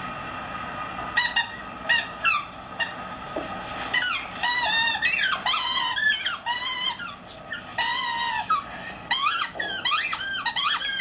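Black Labrador retriever whining and howling: a run of short, high-pitched cries starting about a second in, some bending up and down in pitch, which come longer and closer together in the second half.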